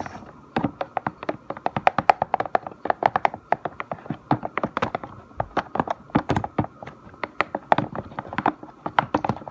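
A stick stirring slime mixture fast in a container, clicking and knocking against its sides several times a second in an irregular run.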